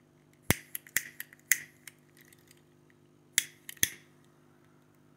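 A handheld gas lighter clicked about six times, four clicks within the first two seconds and two more close together near the four-second mark, as it is struck to light wood chips in a smoke generator.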